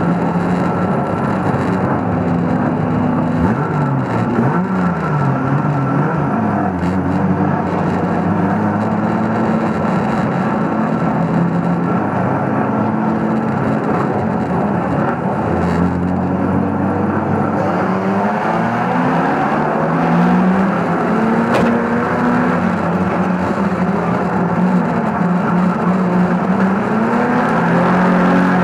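Banger racing car's engine heard from inside the car under racing, revving up and falling back again and again as it accelerates and slows, with other cars' engines running close around it.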